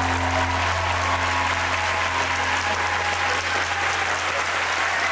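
Theatre audience applauding steadily, with the music's final low note still held underneath.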